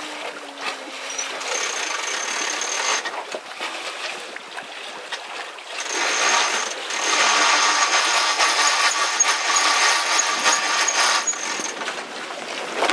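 Yacht sheet winch being cranked, its pawls giving a fast, even ratcheting whirr, first briefly and then in a longer, louder spell from about six to eleven seconds in, with wind and water rushing underneath.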